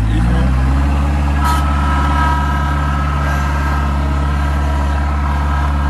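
Kubota F3060 front mower's four-cylinder Kubota diesel engine running, its pitch rising as the throttle is opened about half a second in, then holding steady at the higher speed. A brief hiss comes about a second and a half in, after which a steady high whine runs alongside the engine.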